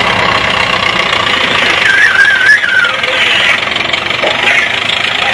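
Red Farmall tractor's engine running at a steady low speed as the tractor is driven slowly across a dirt track. About two seconds in, a brief wavering high tone sounds over the engine for about a second.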